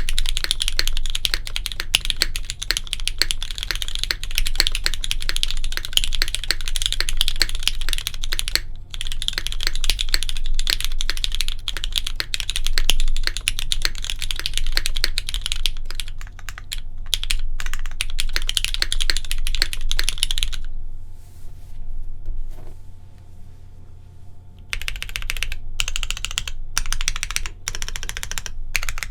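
Continuous typing on a hid.n Midway60 mechanical keyboard with broken-in, lubed and filmed Cherry MX Black linear switches on a polypropylene plate and GMK keycaps: a dense run of keystrokes. Typing stops for about four seconds about two-thirds of the way through, then resumes.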